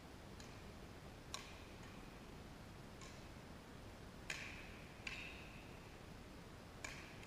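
Badminton rackets striking a shuttlecock during a doubles rally: about six sharp hits roughly a second apart, each trailing a short ring in the echoing gym hall.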